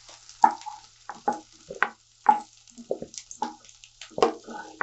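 Wooden spatula scraping and knocking irregularly in a nonstick kadai as fried cauliflower florets are scooped out, over a faint sizzle of hot oil.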